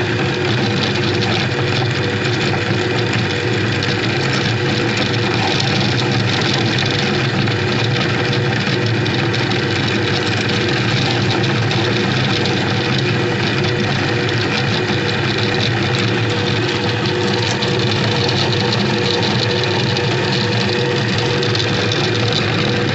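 Electric meat grinder running steadily under load as it crushes hard sugar candy through its grinding plate, a continuous motor hum over a dense grinding noise.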